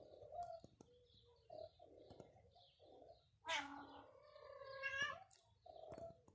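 A domestic cat meowing: one drawn-out meow about halfway through, rising in pitch near its end.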